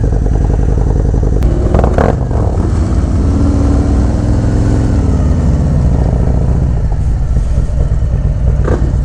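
V-twin engine of a Harley-Davidson touring motorcycle running at low speed, heard from the rider's seat as the bike rolls off. A couple of sharp clicks come about two seconds in and again near the end.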